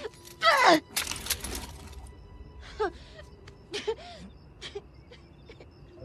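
A young boy's voice crying: a loud falling wail about half a second in, then breathy gasping sobs and a few short whimpers, over soft, quiet film score music.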